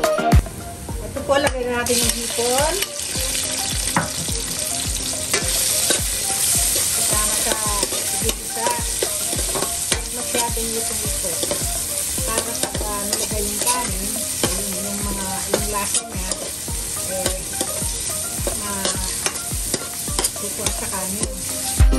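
Garlic and shrimp sizzling in hot oil in a stainless steel wok, with a metal spoon scraping and clicking against the pan as they are stirred. The sizzle grows louder about two seconds in.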